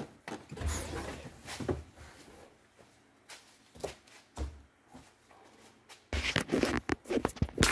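Scattered knocks, rustles and a few dull thuds of handling and moving about, then loud, close rubbing and crackling from about six seconds in as the recording phone is picked up and handled.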